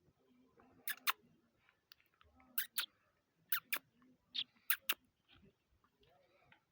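A small bird giving short, sharp chirps, mostly in quick pairs, about nine in all.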